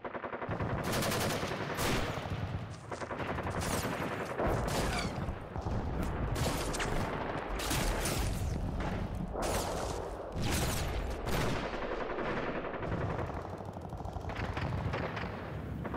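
Battlefield gunfire: many rapid shots and machine-gun fire in quick succession over a steady low rumble.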